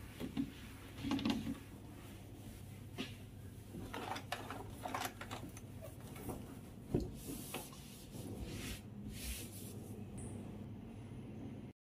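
A cloth wiping the stainless-steel top and control panel of a dishwasher: soft rubbing swishes and light handling knocks, with one sharper knock about seven seconds in, over a steady low hum. The sound cuts off suddenly near the end.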